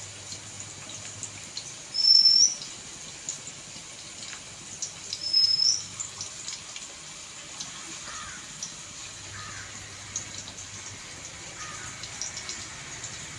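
A bird calling outside with a short, sharp, rising whistle, three times about three seconds apart. Later come fainter, lower chirps that slide downward, all over a steady faint hiss.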